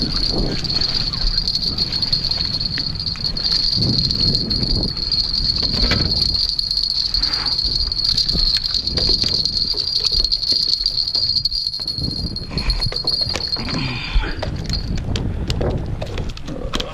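A steady, high-pitched whine holds one pitch and stops about fifteen seconds in, over uneven low rumbling noise with a few scattered clicks.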